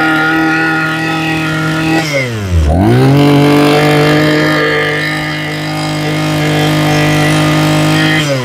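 Maruyama BK201 brush cutter's small engine running at high revs. It drops sharply to idle about two seconds in as the throttle is let off, revs straight back up and holds, then begins to fall again at the very end. It runs very smoothly.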